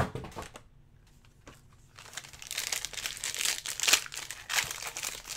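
A knock at the start, then, from about two seconds in, the foil wrapper of a 2019-20 Engrained hockey card pack being torn open and crinkled, with sharp crackles.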